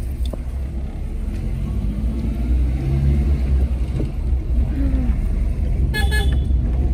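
Car driving along, heard from inside the cabin: a steady low rumble of engine and road. About six seconds in, a horn gives a short toot.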